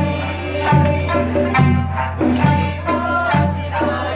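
Ensemble of sanshin, Okinawan three-stringed lutes, plucked together in a steady beat, with voices singing along in traditional Okinawan folk style.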